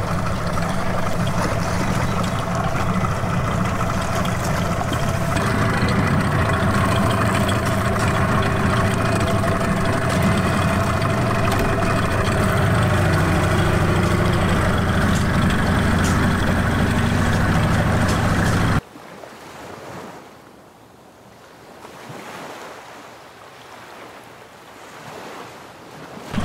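Small outboard motor on an inflatable dinghy running steadily under way. After about nineteen seconds it cuts off suddenly, leaving a quiet wash of wind and sea.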